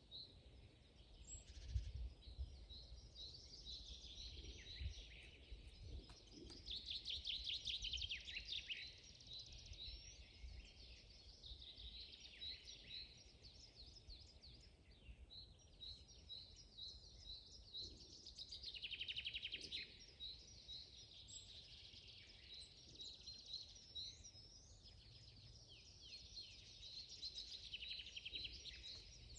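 Several songbirds singing together: a steady stream of short repeated chirps, with louder rapid trills twice, about a quarter and two-thirds of the way through. A faint low rumble lies underneath.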